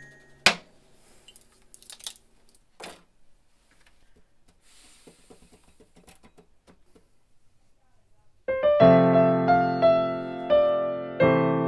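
A single sharp knock about half a second in, then a few fainter knocks and taps. About two thirds of the way through, a keyboard comes in loudly, playing a slow run of notes over ringing chords, each new note struck about every half second.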